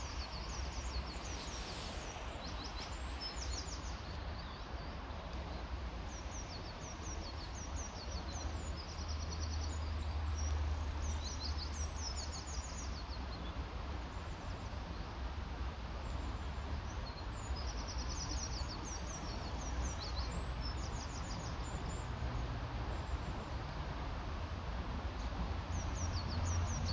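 Small birds singing in repeated short phrases of quick, high notes every second or two, over a steady low rumble of outdoor background noise.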